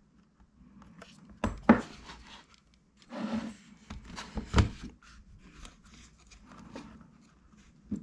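Fingers working the flat SATA ribbon cable into its connector on a Lenovo Legion 5 laptop's motherboard: light rubbing and tapping with a few sharp clicks, the loudest about a second and a half in and just past the middle.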